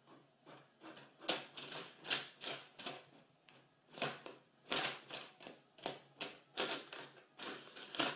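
Sharp, irregular clacks and paper rattles at an office printer's paper slot, about two or three a second, starting about a second in.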